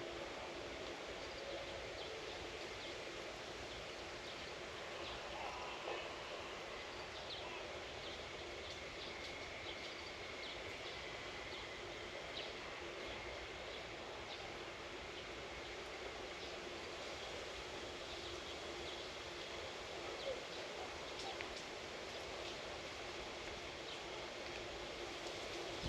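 Outdoor rural ambience: a steady faint hiss with scattered short, high bird chirps throughout.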